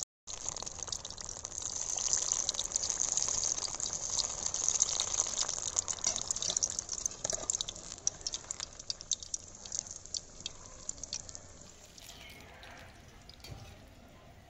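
Hot oil sizzling and crackling with many fine pops as gram-flour-battered potato pakoras deep-fry in a kadai over medium heat. The sizzle grows quieter over the last few seconds.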